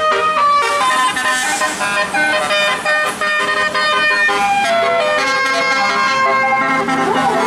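Bus basuri musical horn playing a tune: loud sustained notes stepping up and down in pitch, with a wavering, siren-like sweep near the end.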